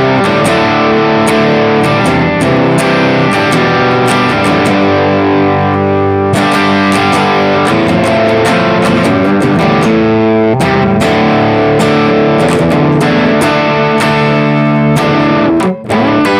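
Electric guitar, a Danelectro 59XT with Filtertron pickup, played through a simple TL071 op-amp overdrive clipping asymmetrically on one Schottky diode and one LED, into a cab simulator: distorted chords and held notes. The playing breaks off for a moment near the end.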